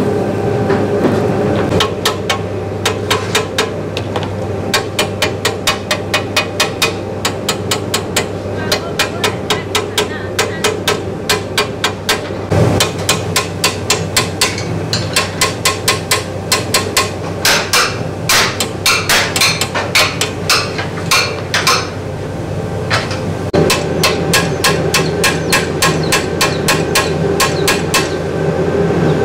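Small hammer striking a rusty steel-tube cart frame in quick light blows, about three a second, with a short pause near the end.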